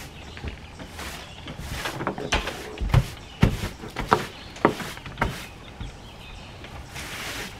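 An angle broom sweeping a dusty plywood floor: scratchy bristle swishes, with a run of sharp knocks about twice a second through the middle as the broom strikes the boards, and a longer swish near the end.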